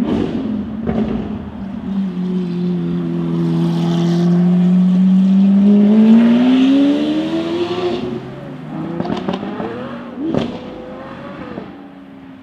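Ferrari 6.3-litre naturally aspirated V12 engine pulling, its pitch climbing steadily to its loudest about six seconds in before falling away. A few sharp cracks come around ten seconds in, and then it settles to a lower, quieter run.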